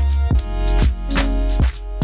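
Background music with a steady beat: held notes over a heavy bass line, with drum hits about twice a second.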